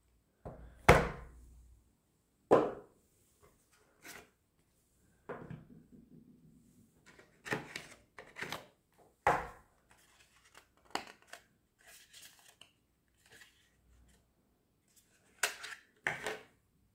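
A white cardboard box and its black plastic packaging insert being handled and set down on a table: a series of irregular knocks and thunks. The loudest two come near the start, under two seconds apart.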